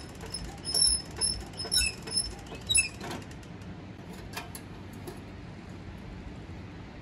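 Squeaky metal creaks with dull knocks, about two a second for the first few seconds, then a couple of sharp clicks, as the parts of a Bungartz L5 single-axle tractor are handled with its engine not running.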